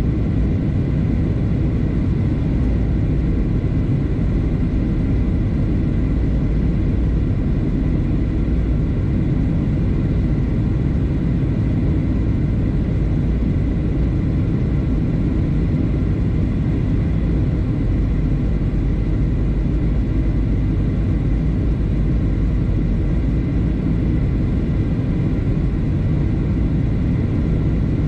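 Airliner cabin noise during the approach: a steady low rumble of engines and airflow, with a faint steady whine above it.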